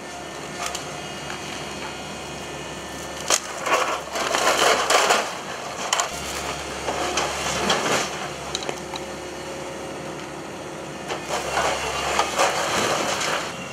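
Excavator's demolition grab crushing and tearing at the roof timbers and brick wall of an old building, with loud spells of cracking and crumbling debris about three seconds in and again near the end, over the steady hum of the Komatsu excavator running.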